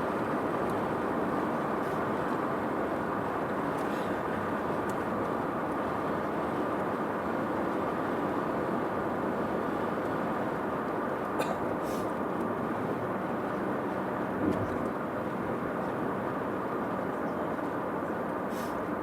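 Steady road and engine noise inside a moving car, with a few faint clicks.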